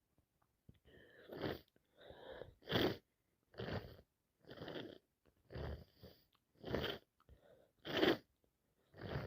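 A person with a head cold sneezing and sniffing in a rapid run, about one burst a second, the loudest of them near the end.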